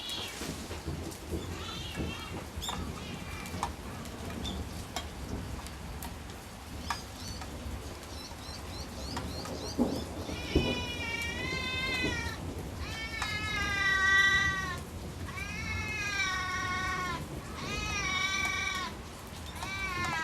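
A domestic cat meowing over and over in about five long, drawn-out meows, starting about halfway through, one after another with short gaps: a hungry cat nagging for food that is held back from it.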